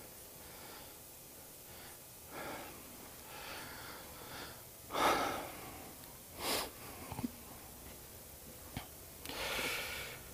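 A man breathing audibly between sentences, about four soft breaths a second or two apart, with a couple of faint clicks in the second half.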